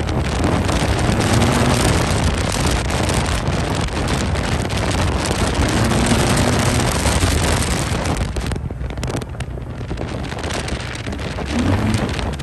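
Wind rushing over the microphone of a Yamaha maxi-scooter being ridden along a road, with the engine's note underneath rising a few times. The rush eases briefly about two thirds of the way through.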